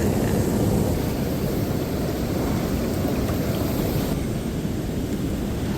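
Wind buffeting the microphone outdoors, a steady low rumble that flickers unevenly.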